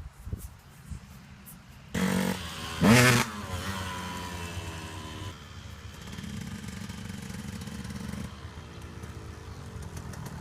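2006 KTM 125 SX two-stroke dirt bike engine exhaling through a Pro Circuit R304 shorty silencer: after a few faint clicks, it revs sharply twice about two and three seconds in, then runs on steadily, its pitch dropping and settling.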